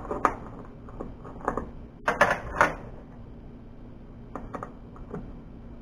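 Small metal fittings and hand tools clinking and knocking as they are handled on a steel truck bed: scattered sharp clicks, with a cluster of knocks about two seconds in, over a faint steady low hum.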